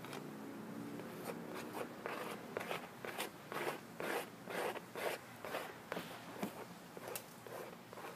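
Oil paint being worked over a canvas on an easel in quick repeated strokes, a scraping, brushing sound about twice a second that starts about a second in.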